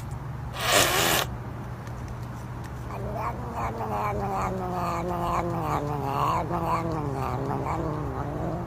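Long-haired domestic cat giving a long, wavering run of short pulsed vocal notes, several a second, sliding slowly lower in pitch, while a finger touches its mouth. A short rushing noise comes about a second in, and a steady low hum lies underneath.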